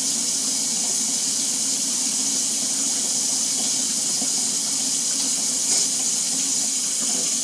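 Stovetop burner heating a pan, a steady hiss with a low hum underneath.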